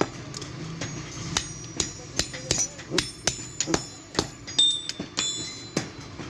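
Hand hammer striking the iron spring on an anvil during forging, about two to three blows a second, each strike ringing.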